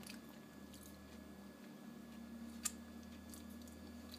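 Faint mouth sounds of a person chewing a bite of baked sweet potato: soft wet clicks, with one sharper click about two and a half seconds in.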